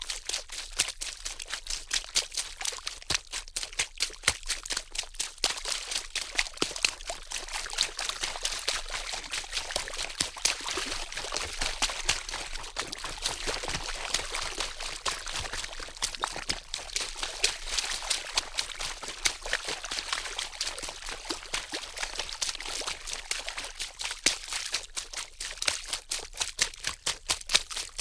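Water splashing and sloshing in a dense run of small sharp splashes, turning into a more even pouring rush through the middle stretch.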